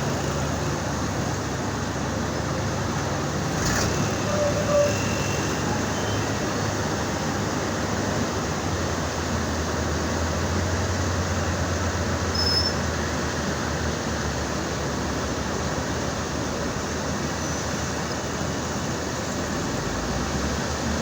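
Steady engine and traffic noise with a low drone that swells for a few seconds in the middle, and a single brief knock about four seconds in.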